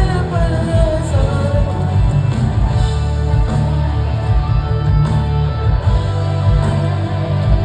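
Rock band music: a voice singing over guitar, with a heavy, steadily pulsing bass beat. The singing is plainest in the first second or so.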